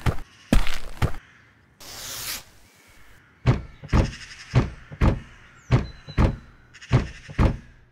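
Cartoon footsteps of a walking building: heavy, even thuds about two a second. They stop briefly, with a short rushing hiss around two seconds in, then resume as a steady march of about eight steps.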